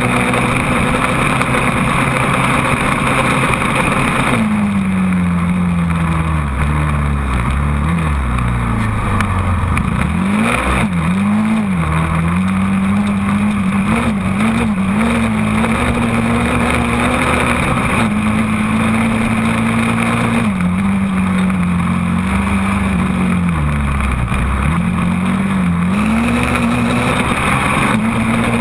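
Quad (ATV) engine heard from the machine itself, running hard at high revs under load on soft dune sand. Its pitch drops as the throttle eases off a few times, around 5 to 10 seconds in and again near 21 to 25 seconds in, then climbs back.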